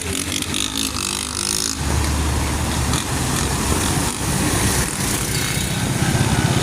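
Motor traffic on a rain-soaked street: car and motorcycle engines running close by over a steady hiss of rain, with an engine growing louder near the end.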